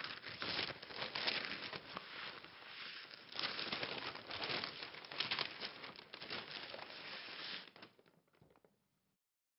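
Newspaper pages rustling and crinkling as the paper is opened and leafed through, in uneven bursts that stop about eight seconds in.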